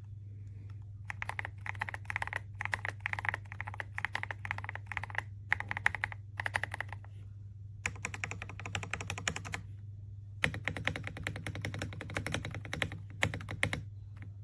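Typing on a mechanical keyboard fitted with KTT Kang White V3 linear switches: several short runs of keystrokes, then two longer, faster runs in the second half. A steady low hum sits underneath.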